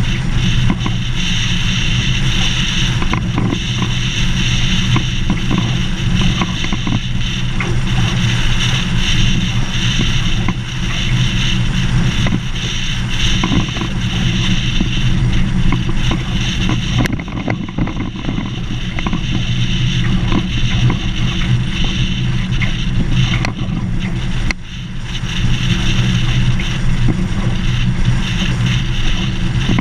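A vehicle driving steadily along a gravel dirt road: a constant engine hum under the rushing noise of tyres on gravel, with scattered small clicks and rattles.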